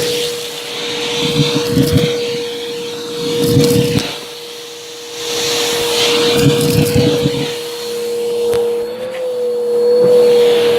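Bissell vacuum cleaner running with a steady motor whine, its brushroll crunching in three bursts.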